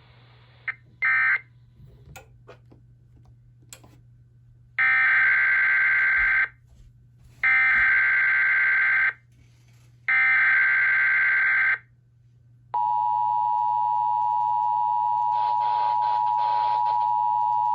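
Emergency Alert System SAME header: a brief data burst about a second in, then three bursts of digital data tones each about a second and a half long with short gaps, followed by the steady two-tone EAS attention signal, which holds to the end.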